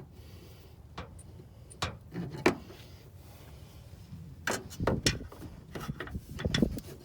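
Hand tools and small parts being handled: a few separate clicks and knocks, then a quicker run of knocks and rattles in the last couple of seconds.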